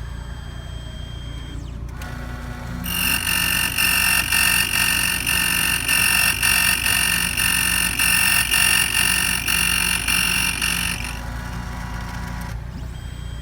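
Computerized code key-cutting machine cutting a Ford-type metal car key. Its motor starts about two seconds in, then a loud high-pitched cutting whine rises and falls about every 0.6 seconds for about eight seconds before the motor winds down and stops.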